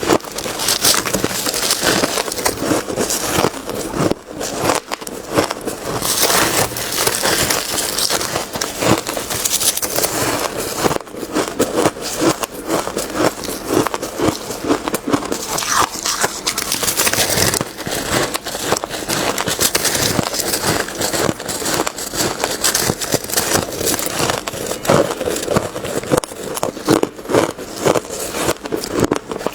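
Biting and chewing of white freezer ice: a dense, continuous run of crunching and crackling.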